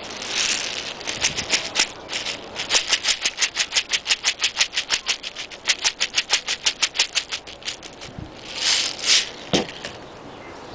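Small plastic airsoft pellets clicking as they are dropped into a plastic grocery bag stuffed in a paintball gun barrel, a long, regular run of about seven clicks a second. There is plastic rustling at the start and again near the end.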